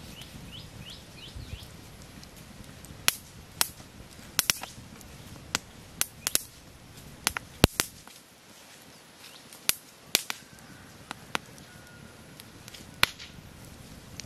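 Campfire with bamboo tubes in the flames crackling, with about a dozen sharp, irregular pops. Near the start a bird gives a quick run of short, falling chirps.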